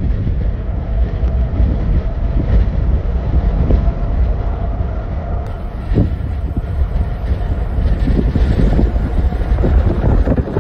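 Strong gusting wind buffeting the microphone over the steady rumble of a Boeing 777X's GE9X jet engines on the runway, with a faint steady engine tone through the first half.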